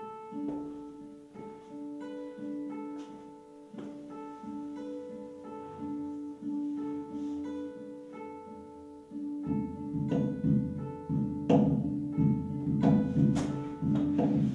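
Instrumental song intro: an acoustic guitar picks a repeating melody alone. About nine and a half seconds in, a fuller, louder accompaniment of accordion chords and cajón hits joins it.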